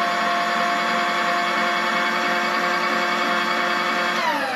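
Drill-milling machine spindle and motor running at steady speed with a whine of several even tones, then spinning down with falling pitch near the end as it is switched off.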